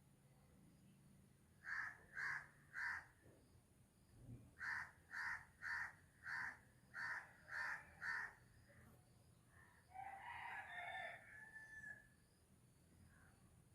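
Birds calling: a run of short, harsh calls at about two a second, ten in all with a pause after the first three, then one longer wavering call near the end.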